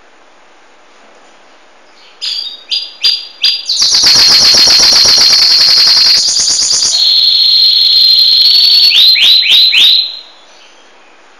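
Domestic canary singing close by: after about two seconds of quiet it gives a few short notes, then a fast, loud trill, a steadier high trill, and a quick run of sweeping notes that stops about ten seconds in.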